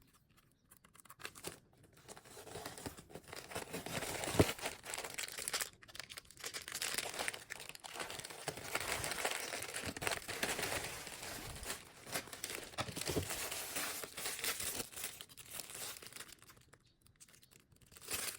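Parcel packaging being opened by hand: crinkling, rustling and tearing that goes on almost without a break, with a single sharp knock about four seconds in, then a short lull near the end.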